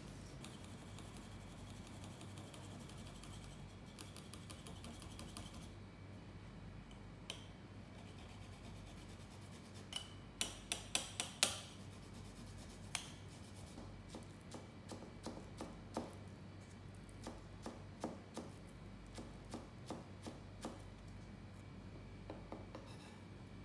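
Faint rubbing and scraping as garlic is peeled and grated on a small metal grater, with a quick run of sharp clicks near the middle. Then a kitchen knife chops green onion on a wooden cutting board in irregular knocks, about two a second.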